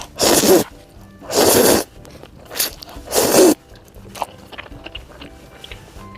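Close-miked eating: four loud crunchy bites in the first three and a half seconds, then quieter chewing, over soft background music.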